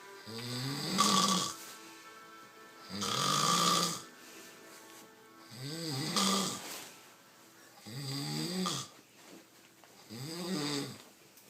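A man snoring very loudly in deep sleep. Five snores come one about every two and a half seconds, each with a pitch that rises and then falls.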